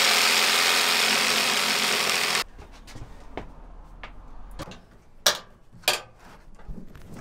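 Electric saw cutting through the countertop to extend the stove cutout: a loud, steady buzz that stops abruptly about two and a half seconds in, followed by a few light knocks and clatters.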